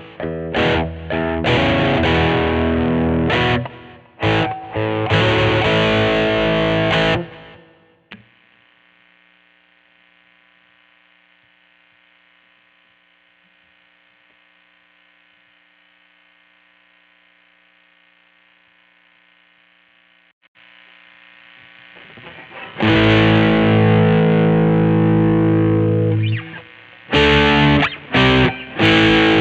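2003 Godin SD 24 electric guitar played through a heavily distorted amp: loud chords with abrupt stops, then a faint held note left ringing for about twelve seconds. It swells back into loud distorted chords, with short stop-start hits near the end.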